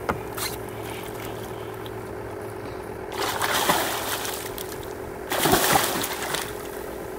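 A hooked fish thrashing and splashing at the water's surface as it is scooped into a landing net, in two loud bursts of splashing, the second one the loudest.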